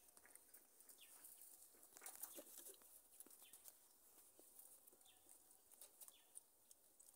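Near silence: a few faint, short falling bird calls, with scattered light clicks.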